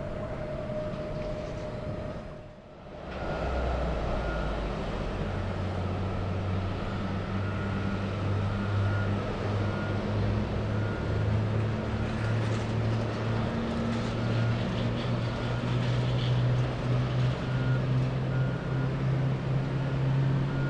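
Jet engines of a Boeing 777 freighter climbing out after take-off, cut off abruptly about two and a half seconds in. Then the diesel engine of an aircraft tow tractor running steadily as it tows an airliner, its pitch slowly rising, with a high intermittent beep over it.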